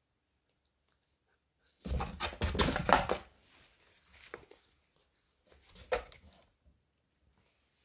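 Scraping and rustling on a cardboard box as a cat shifts inside it: a loud run of scrapes about two seconds in, then softer ones around four and six seconds.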